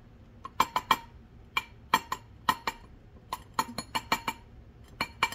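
Light taps hammering a metal ring on a ring mandrel to round it out: quick clusters of two to four sharp, ringing metallic clicks, repeated about every half second to a second.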